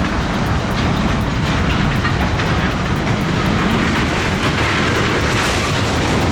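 Train running on the rails: a loud, steady rolling noise of wheels on track, with faint repeated clicks.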